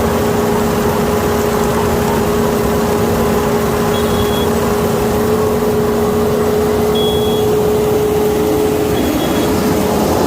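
Kukje KC5130 combine harvester running steadily with a constant engine hum, with short high beeps three times.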